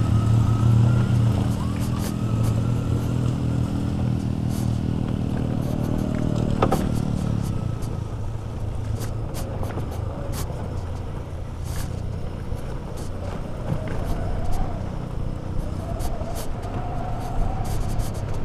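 Wind and road noise from a motorcycle coasting downhill, with a motorcycle engine's hum that fades away over the first eight seconds or so, and scattered small clicks.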